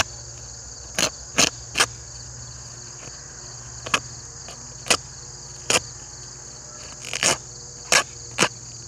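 About ten short, sharp crackles and rips as the outer plastic bag of a bag-type archery target is cut and torn open by hand with a small knife. Under them runs a steady, high-pitched chorus of insects.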